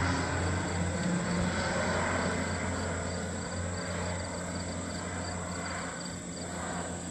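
Crop-dusting biplane's propeller engine droning, fading steadily as it flies away. An insect chirps in a steady rhythm, a few times a second, behind it.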